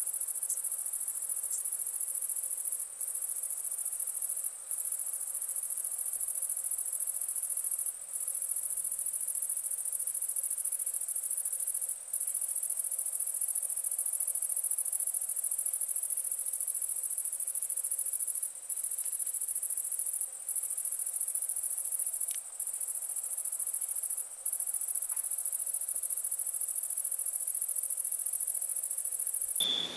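Crickets chirping in a continuous high-pitched trill that breaks off briefly about eight times.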